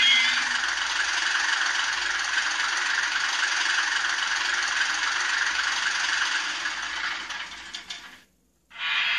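ESU sound decoder in a Bemo VT 133 H0e model railcar, playing an O&K diesel locomotive's engine sound through the model's small loudspeaker. The engine sound runs steadily with a rattly, tinny character, then dies away about eight seconds in. After a brief silence it starts again abruptly near the end.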